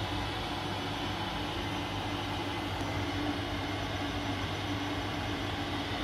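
Steady whirring hum of a Worcester RI gas boiler's combustion fan running, the pre-purge ahead of the ignition spark.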